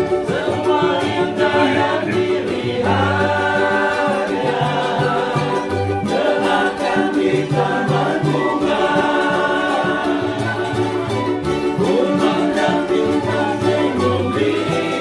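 Keroncong band playing: small ukulele-type instruments strumming with a plucked cello bass and a flute, while several men sing the melody together.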